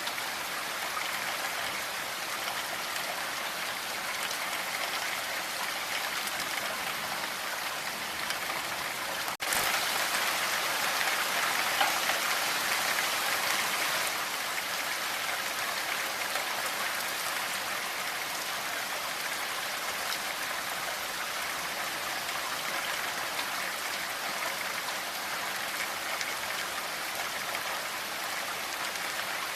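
Steady rainfall, an even hiss of falling drops. About a third of the way in it breaks off for an instant, then comes back slightly louder for a few seconds before settling.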